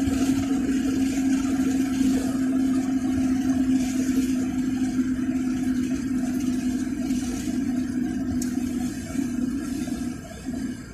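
A car driving along, with a steady drone of engine and road noise that drops in level near the end.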